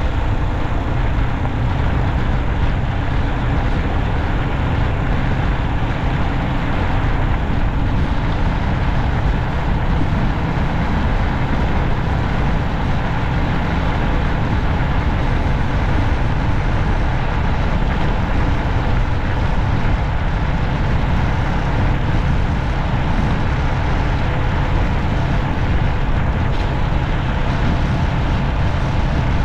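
Steady road and traffic noise of a vehicle driving along a city street, heaviest in the low end, with no sharp events.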